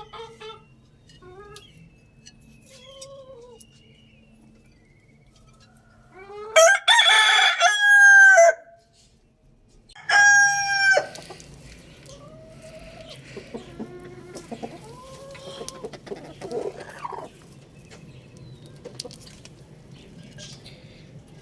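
Roosters crowing: two loud crows, the first about seven seconds in and a shorter one about ten seconds in, with softer clucking calls between and after them.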